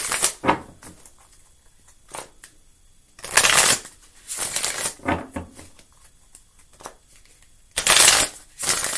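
A deck of cards being shuffled by hand: short bursts of riffling card noise, the loudest about three seconds in and again near the end, with lighter card rustles between.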